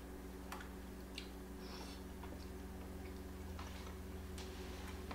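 Faint, scattered clicks of spoons and forks against soup bowls and of people eating, about half a dozen over a few seconds. Under them runs a steady low electrical hum.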